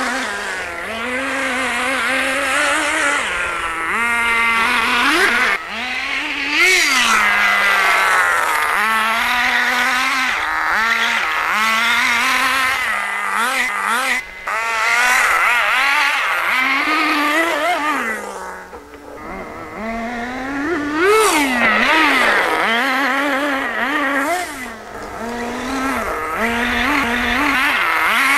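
Small nitro engine of a Redcat Racing RC buggy revving up and down as the buggy is driven hard. Its buzzing pitch keeps rising and falling with the throttle.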